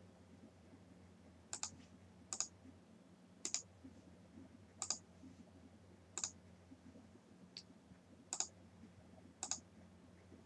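Faint, scattered clicking at a computer, about eight clicks spread a second or so apart, most in quick pairs, over a faint steady low hum.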